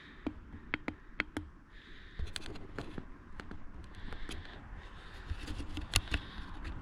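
Irregular sharp clicks and light scraping and rustling from someone moving about and handling things, getting busier in the second half.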